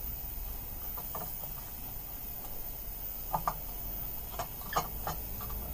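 Scattered light clicks and taps of an ignition coil and its screws being handled and offered up against a small engine's flywheel housing, the sharpest clicks coming in a cluster from about three seconds in, over a low steady background hum.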